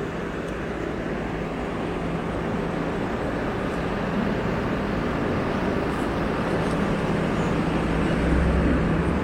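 Steady vehicle noise, a running engine with a low hum under an even rush, growing gradually louder.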